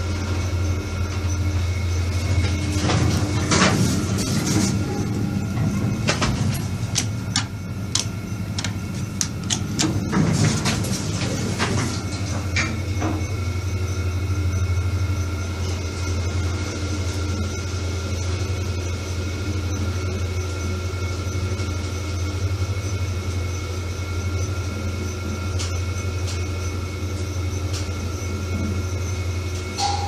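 Toshiba traction lift car travelling, heard from inside the car: a steady low hum, with a run of clicks and rushing noise between about three and thirteen seconds in.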